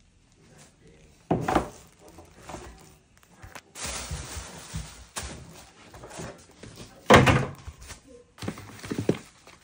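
Packaging being handled: thumps and knocks from a cardboard box and its foam insert as items are moved, two of them loud, about a second in and about seven seconds in, with a stretch of rustling or scraping in between.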